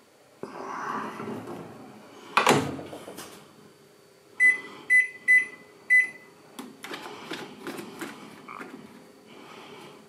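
Panasonic microwave oven door shut with one loud thud, then four short high beeps as buttons on the control panel are pressed, followed by a run of small clicks as the dial is turned to set the time.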